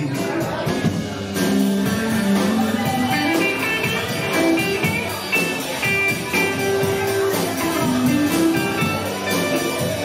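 Live blues-rock band playing an instrumental passage, with electric guitar taking a melodic lead over bass and drums.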